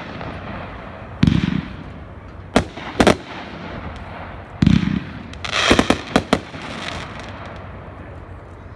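Consumer 500-gram fireworks cake firing: single loud bangs a second or so apart, some with a deep boom, then a quick cluster of bangs about five and a half seconds in, after which the firing stops.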